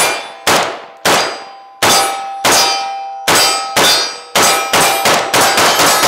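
AK-47 rifle shots, about a dozen, spaced roughly half a second apart and then coming faster from about four seconds in as the magazine is emptied. Each shot leaves a ringing tail, with the clang of hit steel targets ringing under it.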